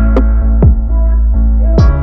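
Electronic background music: deep bass hits that slide down in pitch over held synth tones.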